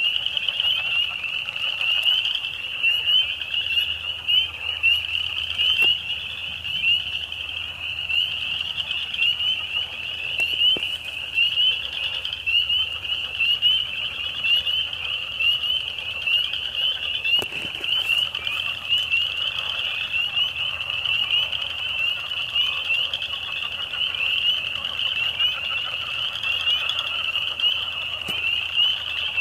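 Dense chorus of frogs calling: countless short, high-pitched peeping calls overlapping without pause, over a weaker, lower chattering layer.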